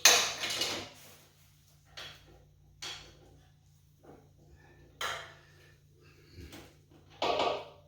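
Metal hand tools clinking and scraping against the generator's steel frame in a handful of separate knocks, as a socket is worked onto a bolt in a cramped spot.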